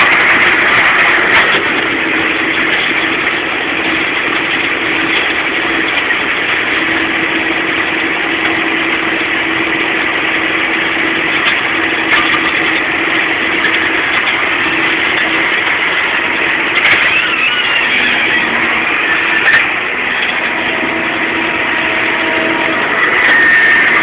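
John Deere 6930 tractor's six-cylinder diesel engine running steadily while pulling a plough, heard from inside the cab.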